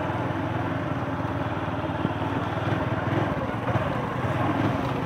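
Motorcycle engine running steadily at low speed, heard from the rider's own bike on a rough muddy track.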